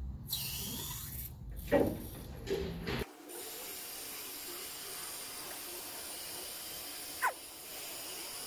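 Car lift lowering: a low rumble with a loud clunk that cuts off suddenly about three seconds in, then a steady hiss with a single click near the end.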